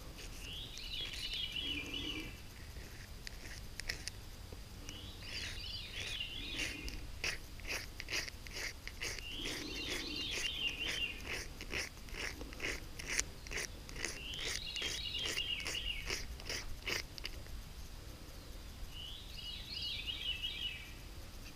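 A songbird sings the same short phrase over and over, about every four to five seconds. Through the middle stretch there is a close run of sharp crunching clicks.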